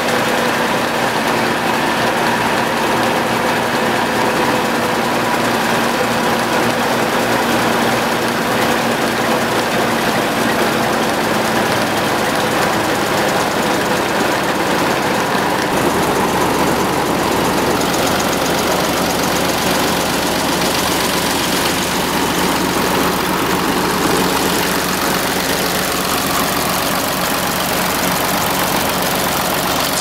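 International UD18 four-cylinder gas-diesel engine running steadily; its sound shifts to a fuller, lower tone about halfway through.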